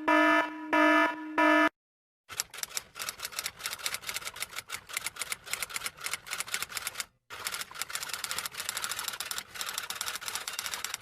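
A harsh buzzer-like tone pulses three times, then after a short pause comes a long run of fast, irregular key clicks of typing, broken once by a brief gap.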